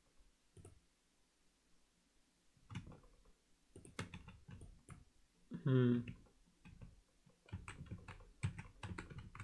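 Computer keyboard keys and mouse buttons clicking in irregular clusters: a few single clicks, then a quicker run of clicks near the end. About halfway through, a man's voice gives one short hum.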